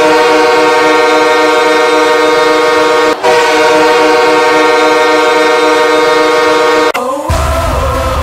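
A loud horn, like a stadium or truck air horn, sounding a steady multi-tone chord in two long blasts broken by a short gap about three seconds in. It stops about seven seconds in, and electronic music with a bass beat starts.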